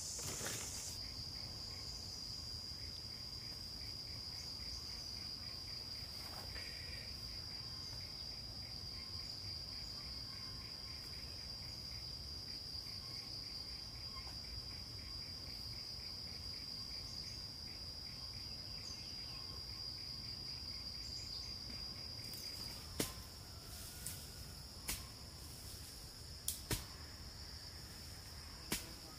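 An insect calling in one steady, high-pitched trill. In the last six seconds several sharp clicks or knocks sound over it.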